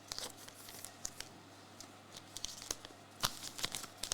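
Faint crinkling and rustling of trading cards and foil pack wrappers being handled, with scattered light clicks and one sharper tap about three seconds in.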